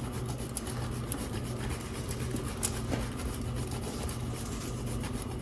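Parmesan cheese being grated: many quick, light scratchy strokes of cheese against a grater, over a low steady hum.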